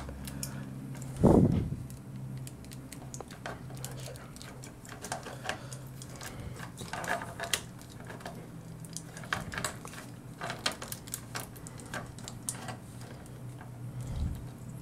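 Hands handling and posing a plastic 1/48 scale action figure: small scattered clicks and taps of hard plastic parts and joints being moved. A brief low thump about a second in is the loudest sound.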